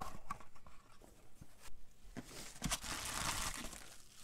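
Packing material crinkling and rustling as items are unwrapped by hand, with a few light clicks and knocks from handling. The crinkling is densest from about two and a half seconds in.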